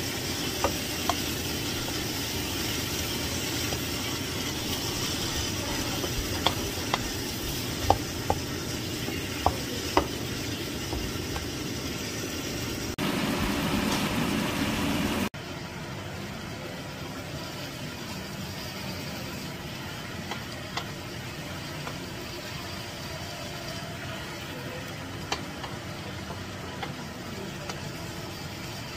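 Pork chunks sizzling in a frying pan as a wooden spatula stirs and turns them, with sharp clacks of the spatula against the pan, several in the first ten seconds. The sizzle drops suddenly quieter a little past halfway.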